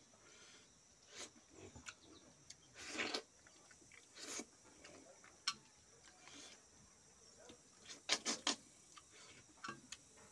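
Scattered small clicks and soft scrapes of fingers picking fish flesh from the bones on a steel plate, with a quick run of three sharper clicks about eight seconds in.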